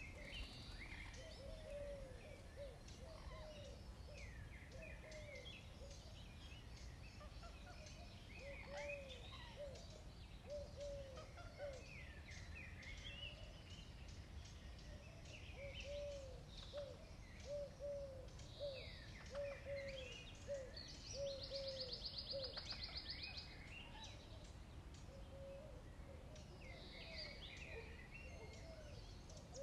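Outdoor birds chirping and calling, with a run of short low notes repeating about twice a second and a rapid trill a little past two-thirds of the way through, over faint crunching of a cat chewing dry kibble.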